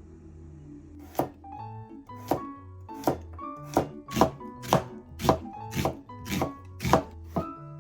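A kitchen knife chopping on a cutting board. About a dozen even strokes at roughly two a second begin about a second in, over background music.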